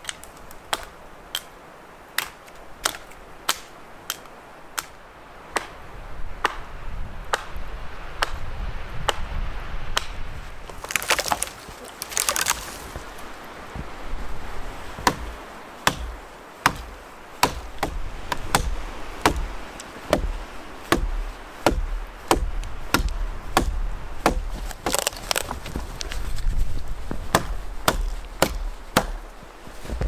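An axe chopping into a small fallen conifer trunk: sharp, evenly paced strikes at about one and a half a second, with a couple of short noisy bursts around halfway and near the end.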